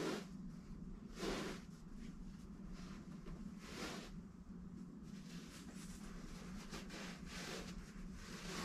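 Material being handled: a few brief rustling swishes over a steady low hum.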